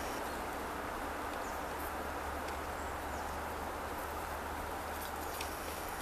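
Steady outdoor forest background noise with a low hum underneath, and a couple of faint high bird chirps about one and a half and three seconds in.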